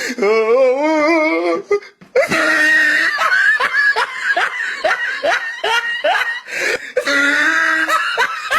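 A person laughing, in a long run of short repeated pulses about three a second, after a wavering, drawn-out opening.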